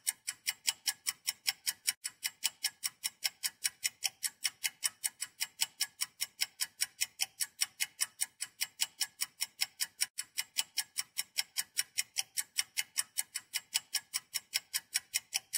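Steady, even ticking, about four to five sharp ticks a second, unbroken, like a fast clock tick.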